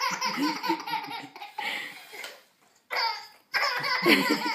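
Baby laughing heartily in two long bouts with a short pause between, and a man's laughter joining in.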